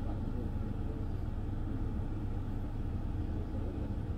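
Steady low rumble with no change or break, the kind of engine or workshop background noise heard inside a parked car.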